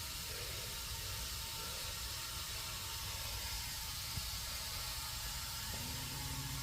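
Steady hiss of compressed air flowing into a tubeless tire as it is inflated to seat its bead. A low steady hum joins near the end.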